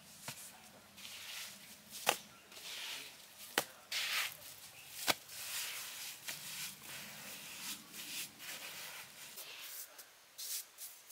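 Bare hands patting, pressing and smearing wet cement mortar onto the earth walls of a dug hollow, a rough scraping and rubbing, with three sharp taps about a second and a half apart.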